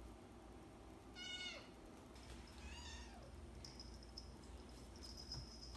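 Kittens mewing faintly: one falling-pitch meow about a second in and a fainter one near three seconds, then a run of faint high squeaks.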